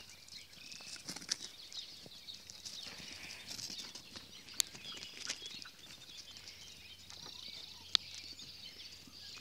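Small birds chirping in a busy, steady chorus of short high notes, with three sharp clicks spread through.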